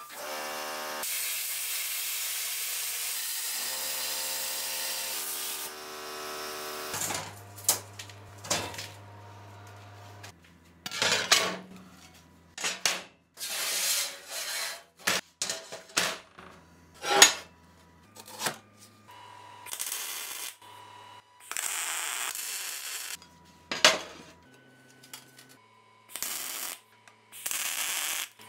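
Steel plate being worked: a steady cutting hiss for about the first six seconds, then a run of sharp metallic clanks as steel plates are handled on a steel table, with short crackling bursts of MIG welding, the last near the end.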